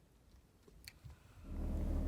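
A faint click, then a low, steady engine drone comes in suddenly about one and a half seconds in and keeps going.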